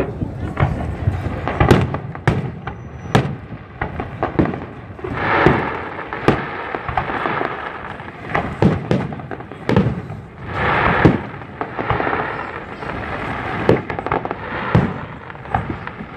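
Aerial fireworks shells bursting in quick succession: a string of sharp bangs at uneven intervals, with two longer rushing swells of noise about five and eleven seconds in.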